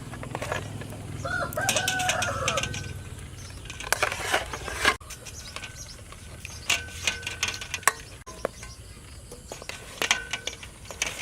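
Chickens calling, with a rooster-like crow about a second in and fainter calls later. Sharp clicks and knocks sound throughout.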